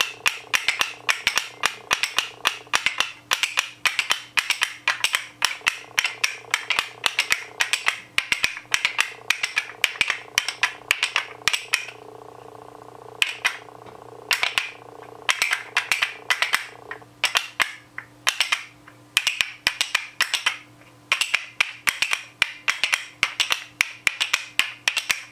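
Wooden zills (painted wooden finger cymbals) clacked together in quick rhythmic patterns, several dry clicks a second, sounding much like castanets. The playing breaks off briefly a few times in the second half.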